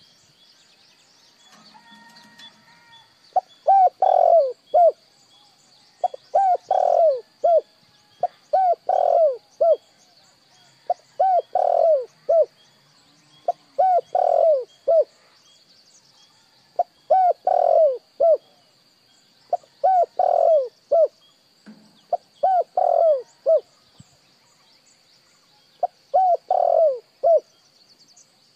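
Spotted dove cooing: a short phrase of several hoarse coo notes, repeated nine times about every three seconds, starting a few seconds in. A faint steady high whine runs behind.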